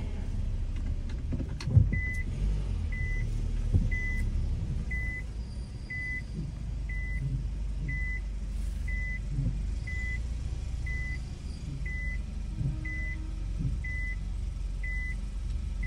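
A car's reverse warning beep chiming inside the cabin, a short high beep about once a second, over the low rumble of the car moving slowly in reverse. A single thump sounds just before the beeping starts.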